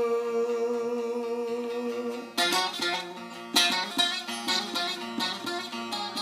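Bağlama (saz) music: the end of a long, steady sung note fades for about two seconds, then the bağlama takes up a quick picked and strummed instrumental passage between sung lines of an uzun hava.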